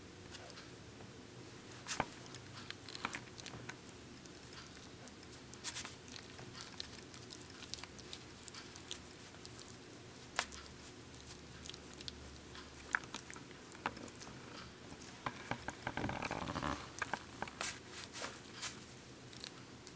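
Bichon Frise puppy gnawing on a chew toy: irregular crunches and clicks of its teeth, with a busier, louder spell of chewing about sixteen seconds in.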